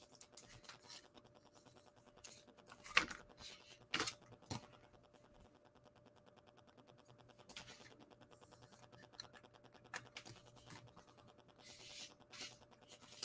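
Faint scattered clicks and scrapes of a trading card being slid into a rigid plastic toploader and handled.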